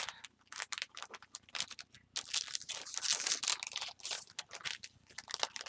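Paper packaging being handled, with irregular rustling and crinkling throughout.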